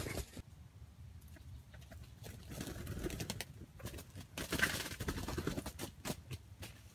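Red junglefowl rooster, the decoy bird of a trap, calling in short, broken clucks and calls, loudest about two-thirds of the way through, among small clicks and rustles.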